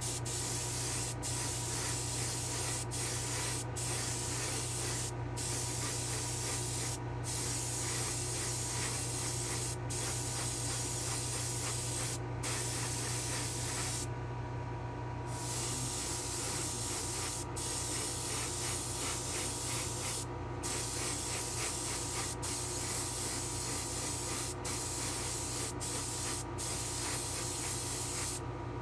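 Airbrush spraying clear coat and paint in long bursts of hiss, briefly stopping and restarting about a dozen times as the trigger is released, over a steady low hum.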